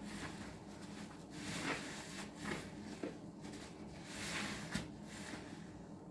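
Foam-soaked kitchen sponges squeezed by hand over a basin of dish-soap suds: wet squishing and hissing of lather, in a few separate squeezes.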